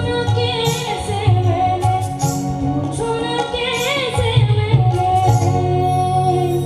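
A young boy singing through a handheld microphone over instrumental backing music with a beat.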